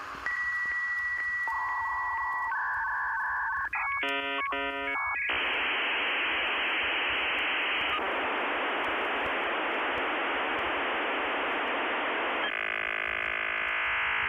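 Dial-up modem connecting over a phone line. A steady high tone with regular ticks gives way to a short burst of rapid warbling tones, then a long stretch of even hiss, and a buzzing chord near the end.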